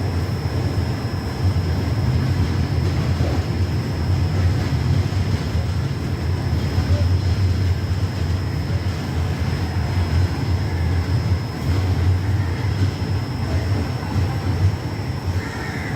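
Passenger train running at speed: a steady low rumble with no clear breaks.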